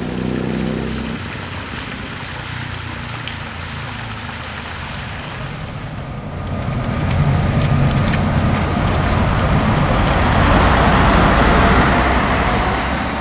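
City street traffic: car engines and tyres passing on the road, with a steady background hum that grows louder in the second half as vehicles drive close by.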